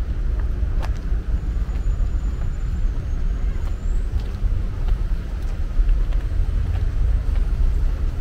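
Steady low rumble of outdoor background noise, with a faint, thin, high whistle between about two and four seconds in.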